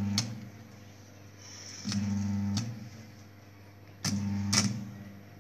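Stick (arc) welder tack-welding a steel square-tube frame corner: three short welds, at the start, about two seconds in and about four seconds in, each a steady low transformer buzz with the arc crackling and clicking.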